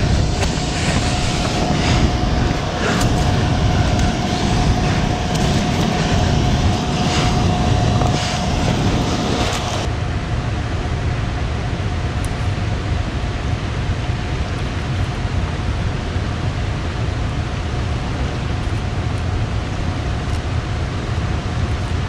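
Steady low roar of high, fast river water rushing below the dam, with a thin steady tone running under it. For the first ten seconds, footsteps crunch over loose rock and rubble.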